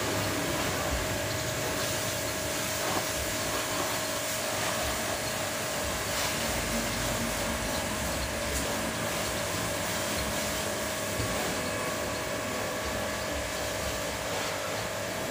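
Pressure washer running steadily with a constant motor whine, its water jet hissing as it sprays a motorcycle.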